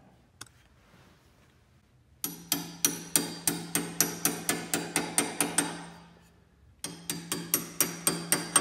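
Claw hammer tapping hardened steel locating pins into a South Bend 13-inch lathe's cast-iron saddle to seat them: quick light taps, about five a second, each with a metallic ring. There are two runs of tapping, one for each pin, the first starting about two seconds in and the second about seven seconds in.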